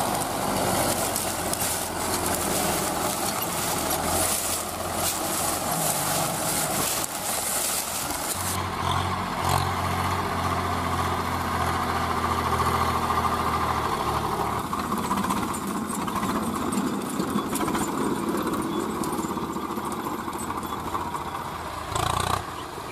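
Diesel farm tractor engines running and idling, with a steady low engine drone whose note changes about a third of the way in. There is a brief louder burst near the end.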